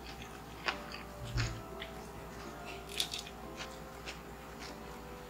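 Close-miked eating sounds: a few sharp clicks and crackles from chewing and handling seafood, over soft background music.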